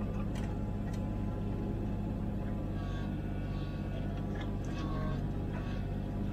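Komatsu PC16 mini excavator's diesel engine running steadily, heard from the operator's cab, as the arm lowers the bucket into the trench. Short clicks and brief hydraulic whines come over the engine several times.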